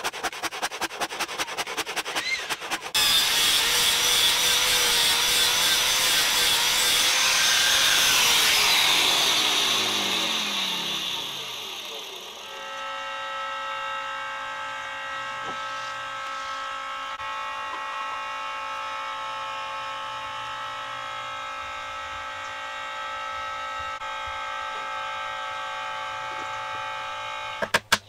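Power tools working a wooden stump. A rapid, even clatter runs for about three seconds, then a louder tool runs and winds down with falling pitch about ten seconds in. A steady hum follows until the rapid clatter starts again near the end.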